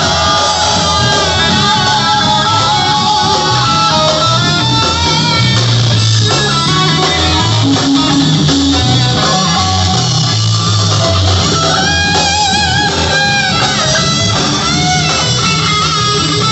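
A rock band playing live and loud, with electric guitar carrying the melody over the band and no singing. Near the end the lead line wavers in pitch.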